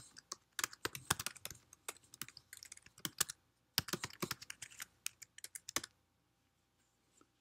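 Typing on a computer keyboard: two quick runs of keystrokes with a short pause between them about three and a half seconds in, stopping just before six seconds.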